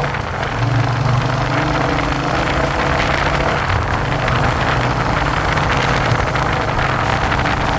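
Royal Enfield Hunter 350's single-cylinder engine and exhaust running steadily at an even engine speed, over a steady rush of noise.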